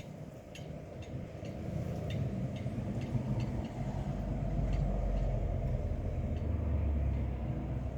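Wind gusting over the microphone: a low rumble that builds from about two seconds in, is strongest for a few seconds, then eases near the end. A few faint short clicks sound in the first seconds.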